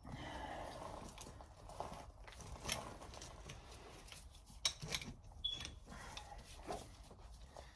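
Scattered metal clicks and knocks as a copper crimp shutoff tool is handled and positioned on 3/4-inch copper tubing. The sharpest click comes about halfway through, followed by a brief high metallic ring.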